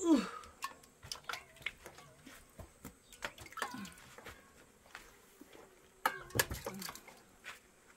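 Short falling cries, one at the start and another about three and a half seconds in, amid scattered light clicks and knocks.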